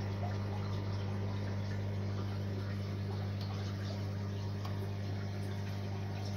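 Sump aquarium's filtration running: a steady low hum from the pump, with water trickling and faint dripping over it.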